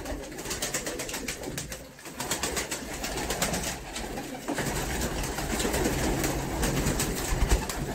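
Domestic pigeons in a small loft flapping and fluttering their wings as they are stirred off their shelves, with cooing among them.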